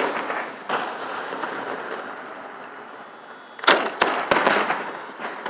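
Aerial fireworks shells bursting close overhead: one bang about a second in, then a loud cluster of four sharp bangs in quick succession about two-thirds of the way through. A continuous crackle of glittering stars carries on between the bangs.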